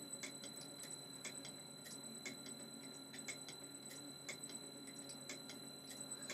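Faint, irregular ticking, about three ticks a second, over a steady high-pitched whine and a low hum.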